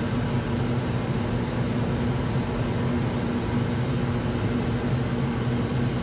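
Steady in-flight cabin noise of a Cirrus SF50 Vision Jet: a constant rush of air and engine noise from its single Williams FJ33 turbofan, with a steady low hum underneath.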